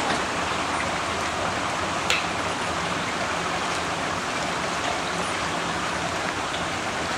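Steady hiss of rain and running water just after a hailstorm has stopped, with a sharp tick from a drop landing near the start and again about two seconds in.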